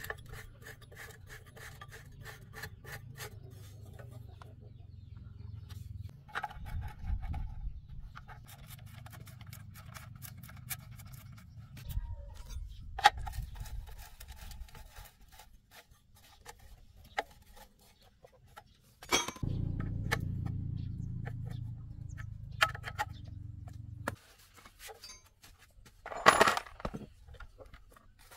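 Small metal parts clinking, scraping and knocking as they are handled, in scattered clicks, with a steady low hum that comes on a little past the middle and stops about five seconds later.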